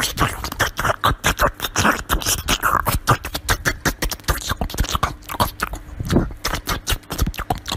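A small dog biting and chewing watermelon flesh up close, with rapid, irregular crunching and smacking several times a second.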